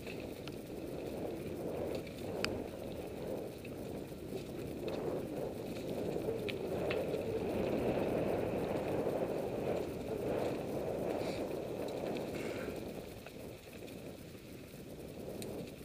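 Mountain bike rolling along a dirt singletrack: a continuous rumble and rattle of tyres on the trail and the bike shaking over bumps, with a few sharp clicks. It eases off near the end.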